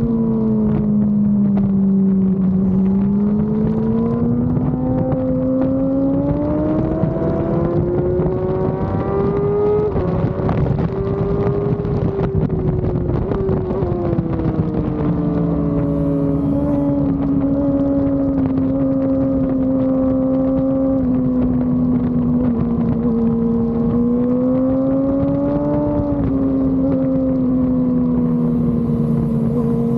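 Yamaha R6 inline-four engine heard from its own onboard camera at racing speed, its pitch climbing slowly, falling back mid-way, holding steady, then climbing and dropping again near the end. Wind buffets the microphone throughout.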